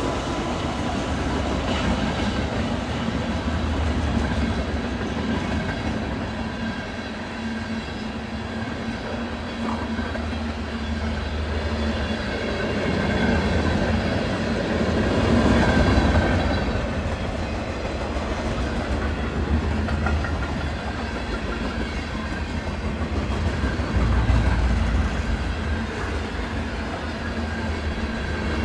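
Freight train cars rolling past at speed: a steady rumble of steel wheels on the rails that swells louder a couple of times.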